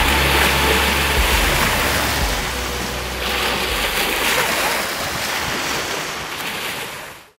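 Small waves washing up on a sandy shore, the surf swelling twice a few seconds apart. Low background music trails off in the first couple of seconds, and the sound fades out near the end.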